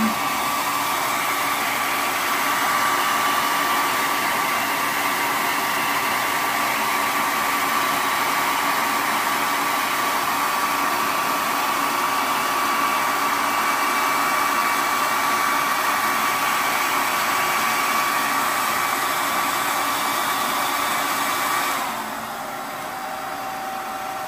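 Handheld hair dryer running continuously, a steady rush of air with a motor whine. About 22 seconds in, the whine drops in pitch and the airflow gets quieter as the dryer steps down to a lower speed.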